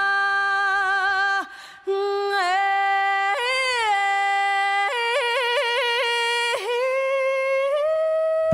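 A single unaccompanied singing voice with no drums or bass, holding long notes that slide between pitches. There is a short break about one and a half seconds in, and a fast warbling ornament around the middle before a final long held note.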